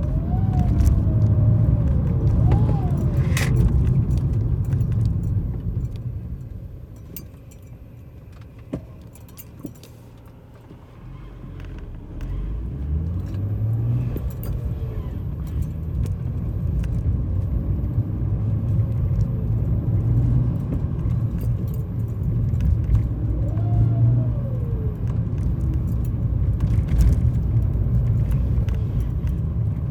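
2011 BMW 335ix's N55 turbocharged straight-six pulling under way, with a howling whistle that rises and falls in pitch over the engine note. The engine eases off for a few seconds near the middle, then picks up again with rising revs. The howl is the sign of a failing turbocharger, later confirmed as a blown turbo.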